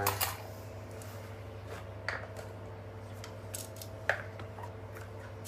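A few light, sharp clicks and knocks of hard-plastic cordless power tools being handled, over a steady low electrical hum.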